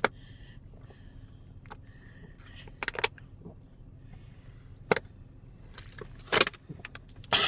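A man hiccuping in a car cabin, four or so short, sharp catches spaced a second or two apart, over a low steady hum.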